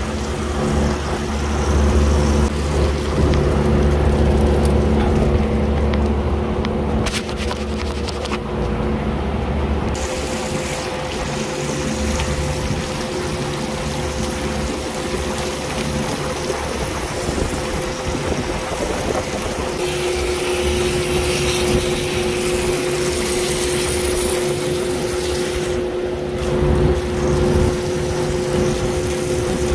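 Water hose spraying up into the fins of a refrigeration rack's air-cooled condenser coil and splashing back down, over a steady machinery hum. The coil is being rinsed of fine dust and is so deteriorated that chemical cleaner can't be used.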